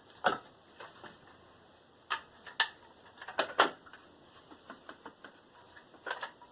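Irregular light clicks and knocks as a distributor cap is handled and set onto the distributor of a Chevy 305 V8.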